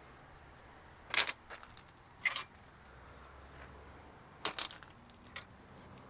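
Steel connecting-rod bolts clinking against one another as they are handled and bagged: five sharp metallic clinks. The loudest comes about a second in, then single ones, and a quick double clink a little past halfway.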